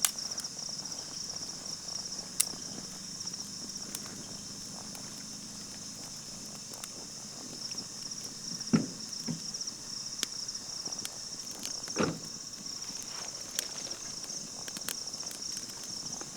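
Insects chirring steadily in a high, pulsing drone, with scattered sharp clicks and cracks and two dull thumps around the middle.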